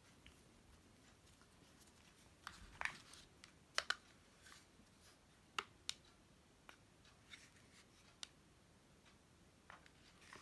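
Coiled USB cable and packaging being handled: mostly quiet, with a scattering of small clicks and taps, the most distinct between about two and six seconds in.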